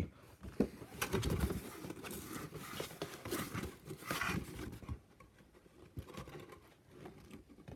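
Rustling of packaging and light clicks of plastic game pieces being handled as the Ker Plunk box is unpacked, in short irregular bursts.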